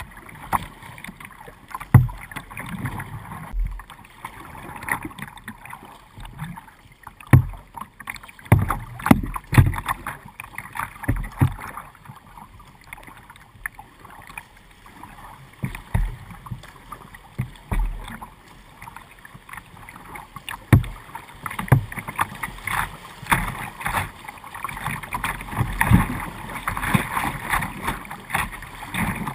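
River current rushing and splashing against the bow of a plastic Dagger Mamba 8.1 whitewater kayak, picked up by a camera mounted on its deck. Irregular thumps come every second or few as water slaps the hull. The splashing grows busier and louder near the end as the water gets choppier.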